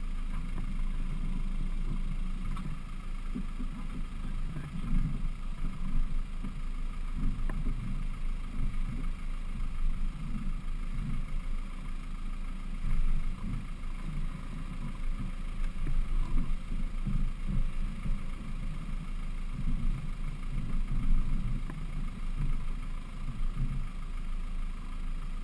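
Land Rover Defender 110's engine running steadily at low revs as the truck creeps down a rocky dirt track, with irregular low thumps from the wheels and suspension going over the bumps.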